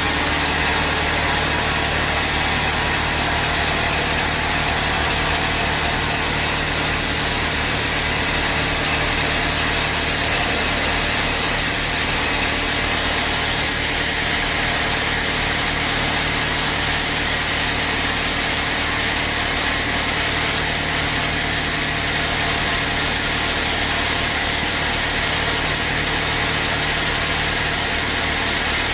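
Sawmill bandsaw machinery running steadily: a continuous low machine hum under a broad hiss, with no break or change.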